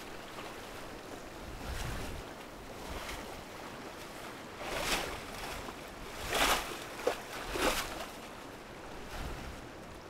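Brown bear splashing through a rushing river after salmon: a steady rush of water with three louder splashes in the second half.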